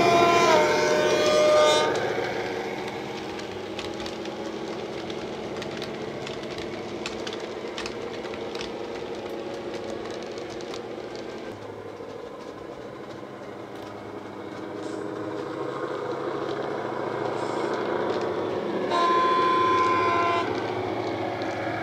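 Sound decoder of a model Class 59 diesel locomotive, heard through its small speaker. It opens with a two-tone horn sounding a high note then a low note for about two seconds, then plays a running diesel engine sound with scattered clicking as the train passes. About nineteen seconds in, the playable horn sounds a single steady note for about a second and a half.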